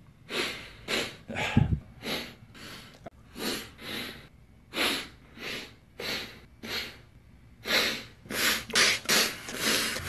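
A man sniffling and breathing in short, sharp hisses through the nose while tearful, about two a second, crowding closer together near the end. There is one brief low voiced catch in his throat about one and a half seconds in.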